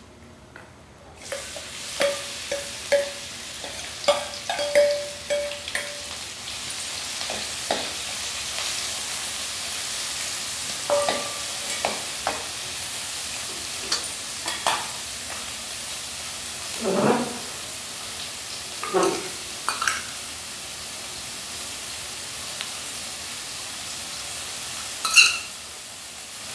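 Chopped onions hitting hot desi ghee with cumin seeds in a kadai, sizzling suddenly about a second in, then frying steadily. A spoon clinks and scrapes against the pan now and then as the onions are stirred.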